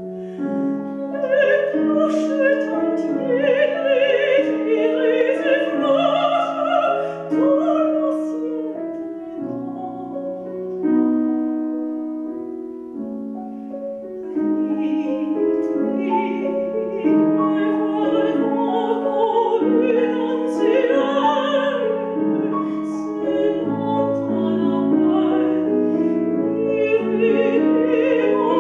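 A woman singing in classical operatic style with vibrato, accompanied by a grand piano. Her voice drops out for a few seconds about a third of the way in, leaving the piano playing alone, then comes back.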